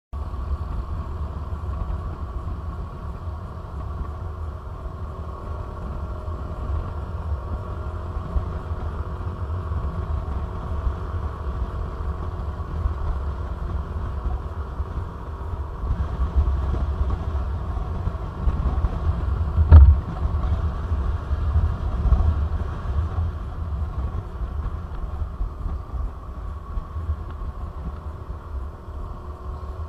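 Motorcycle engine running steadily while riding on the open road, recorded on a bike-mounted action camera, under a heavy low rumble of wind on the microphone. A single sharp knock stands out about two-thirds of the way through.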